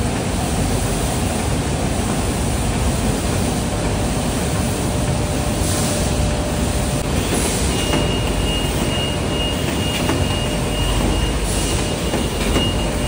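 Steady din of industrial bakery production-line machinery, with conveyors and packaging machines running. A faint high whine joins about eight seconds in, and a few short hisses sound over it.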